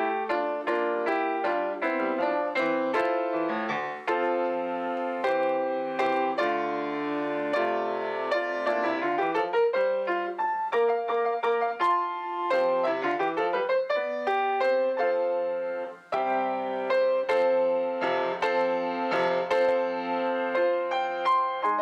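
Solo piano playing a slow prelude of chords and rolling arpeggios, with a brief pause about sixteen seconds in.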